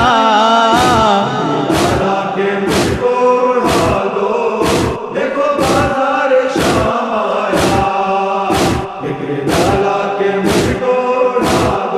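Urdu nawha: a male reciter's held, wavering note gives way about a second in to a group of men chanting the refrain. Under it runs a steady chest-beating (matam) beat, about one stroke a second.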